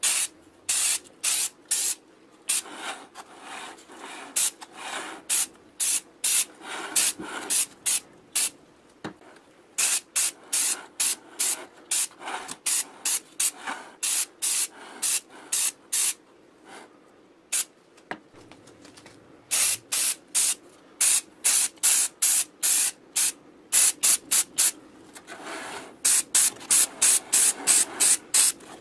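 Rust-Oleum aerosol spray-paint can hissing in many short bursts as paint is sprayed onto metal compressor parts. The bursts come in quick runs of two to three a second near the end.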